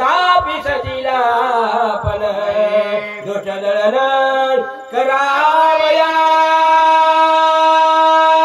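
A solo voice singing a devotional kirtan verse in an ornamented melody that glides up and down, then settles into one long, steady held note about five seconds in.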